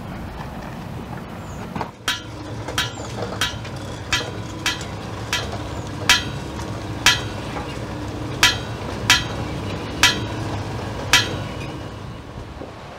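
Thin metal mould plates clinking as they are handled and set down on a stack: about a dozen sharp, ringing clicks at irregular intervals, with a steady low hum underneath.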